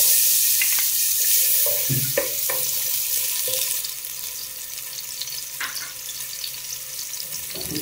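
Sliced onions sizzling in hot oil in a large metal pot, loudest at first and easing a little after about four seconds. A few light knocks and scrapes of a wooden spatula stirring them.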